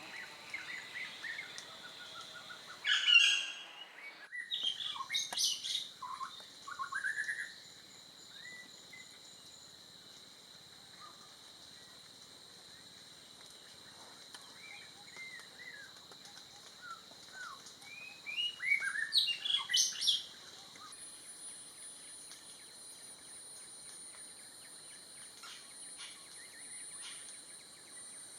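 Greater yellownape woodpecker calling: two loud bursts of quick, sharp notes, one a few seconds in and one about two-thirds of the way through, with fainter scattered calls between. Steady high-pitched insect droning runs underneath.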